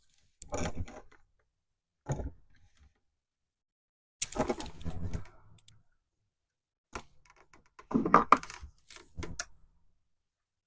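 Scattered clicks, small metal clinks and rustles, in about five short bursts with silent gaps between: hand work on a wall outlet and its screws.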